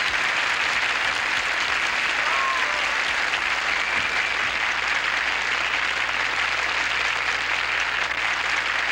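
Studio audience applauding steadily after a comedy punchline.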